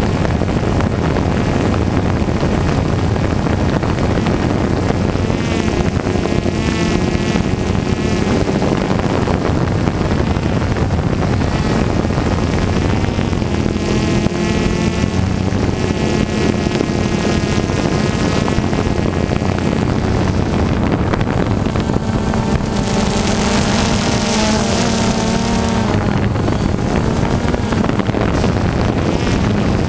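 Quadcopter drone's propellers and motors buzzing steadily and loudly, heard close up from the drone itself. Its whine shifts up and down in pitch several times as the drone changes speed while manoeuvring.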